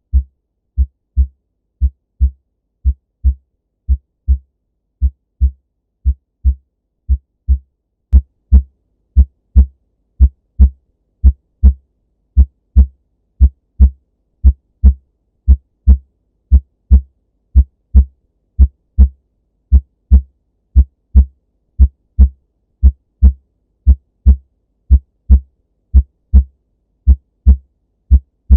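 Normal human heart sounds heard on auscultation: a steady lub-dub of S1 and S2 repeating about once a second, with silence between the beats and no murmur, rub or gallop. About eight seconds in, the beats become louder and sharper.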